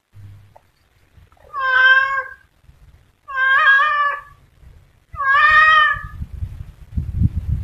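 Domestic cat meowing three times, each call long and drawn out, spaced about a second and a half apart. A low rumbling noise with a few knocks follows near the end.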